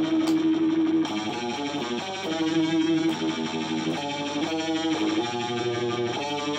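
Stratocaster-style electric guitar playing a blues lead line through an amplifier: long held notes alternating with short runs of quickly picked notes.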